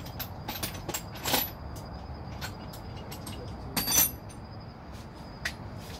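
Scattered metal clicks and clinks of hand tools working on an engine, as a wrench is used on the exhaust bracket bolts. There are two louder clattering bursts, about a second in and near four seconds in.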